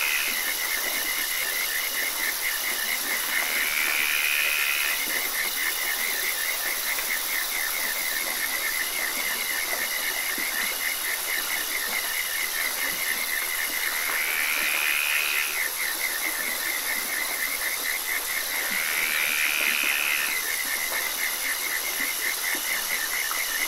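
Ambience track of a frog chorus: a steady, fast pulsing trill over a high, thin, steady whine. A louder rising call comes three times, about three, fourteen and nineteen seconds in.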